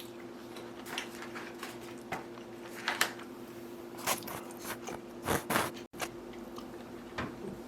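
A person chewing soft rehydrated chicken-and-vegetable food, with irregular wet clicks and smacks from mouth and utensil, over a faint steady hum.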